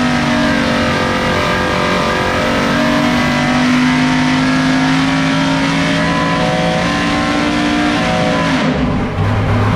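Dodge R5P7 NASCAR small-block V8, a 357-cubic-inch naturally aspirated carbureted race engine, running hard under load on an engine dyno during a short pull, its pitch climbing slowly. Near the end the throttle is shut and the engine drops back to a lower, steady idle.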